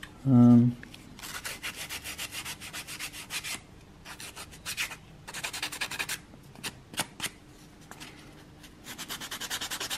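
Thin wooden wedges being hand-sanded with a small sheet of sandpaper to knock their edges off: quick back-and-forth rubbing strokes in several short bursts. A brief vocal sound comes just at the start.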